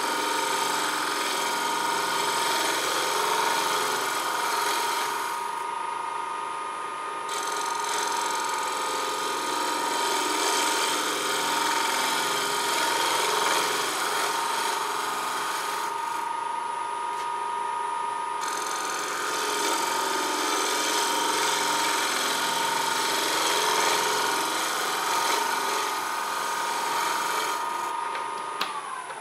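Wood lathe motor running with a steady whine while a slightly dull bowl gouge cuts a very dry elm bowl blank, a continuous rough shaving hiss that stops twice for a second or two. Near the end the lathe is switched off and its whine falls away as it spins down.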